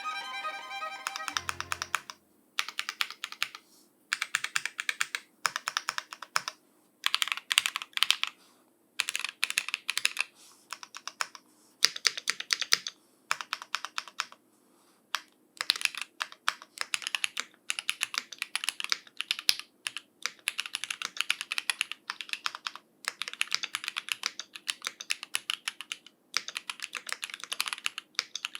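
Typing on a Lemokey L3 mechanical keyboard with factory-lubed Gateron Red linear switches, in bursts of a few seconds separated by short pauses. Violin music fades out in the first two seconds.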